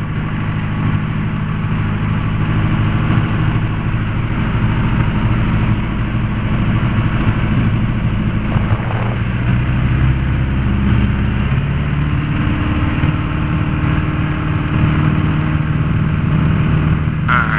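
Piper Archer's four-cylinder Lycoming O-360 engine and propeller heard inside the cabin, running steadily as the plane lines up on the runway. The engine note shifts upward about twelve seconds in as power is added for the takeoff roll.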